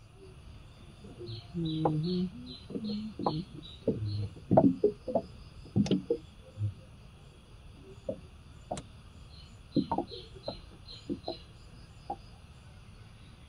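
A bird calling in rapid runs of short descending chirps, about four a second, in two bouts, over a steady high insect drone. Louder low-pitched sounds and several sharp knocks come in the first half.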